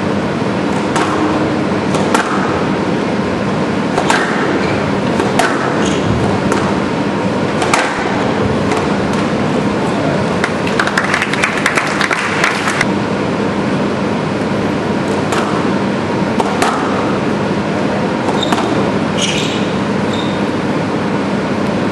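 Squash rally: the ball cracking off rackets and the court walls in sharp, irregularly spaced hits, over a steady loud hiss of hall and recording noise.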